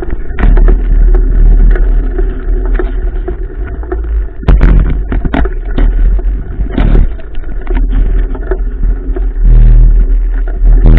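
Mountain bike ridden over a rough trail, heard from a GoPro mounted on the bike: heavy wind rumble on the microphone, with the bike clattering and knocking over bumps.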